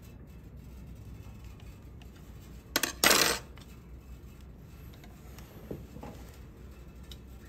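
A short metallic clatter about three seconds in, two quick jingling hits as a hex key knocks against the sewing machine's metal trimmer parts. A couple of faint clicks follow a few seconds later.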